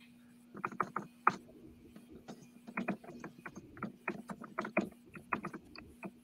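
Typing on a computer keyboard: irregular runs of quick key clicks, with a faint steady hum underneath.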